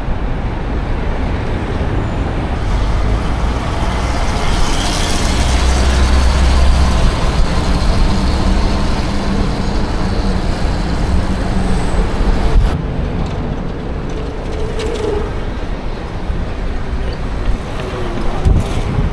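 Rush-hour traffic on the roadway beside the bike lane: a steady rush of cars and trucks heard from a moving bicycle. A deep rumble swells about a quarter of the way in and then eases.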